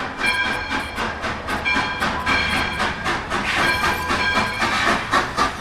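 Miniature amusement-park train running along its track, its wheels clicking on the rails in a quick, even rhythm.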